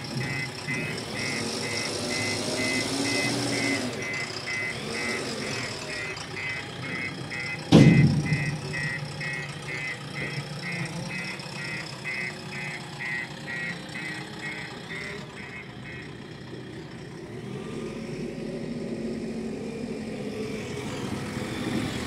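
JCB 3DX backhoe loader running with its reversing alarm beeping steadily, about two beeps a second, while the machine backs off. A single heavy thud comes about eight seconds in. The beeping stops about sixteen seconds in, leaving the engine running.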